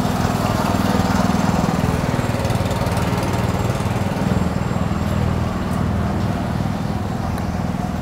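A small engine running steadily close by, amid street-market background noise.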